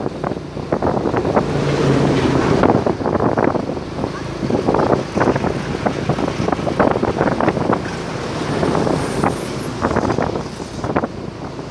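Wind buffeting the microphone over the running rumble of road traffic, with a brief high hiss about eight seconds in.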